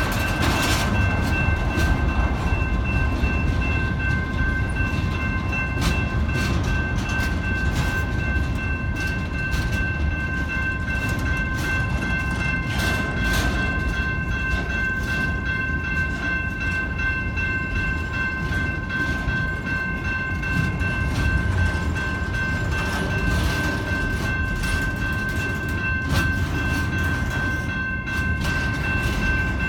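Freight train cars rolling past on the rails: a steady low rumble with irregular clanks and knocks, and a steady high-pitched whine held over it.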